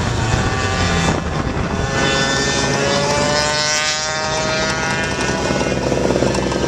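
Gas Go-ped's small two-stroke engine buzzing under way. Its pitch climbs steadily from about a second in as the scooter picks up speed, then holds.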